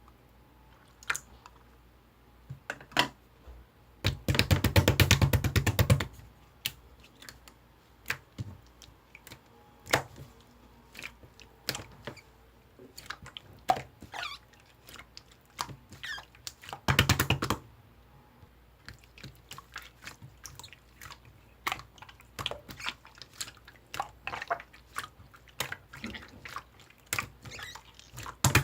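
Orange slime being squeezed and poked by hand: scattered wet clicks and pops. Runs of rapid crackling pops come about four seconds in, about seventeen seconds in, and again near the end.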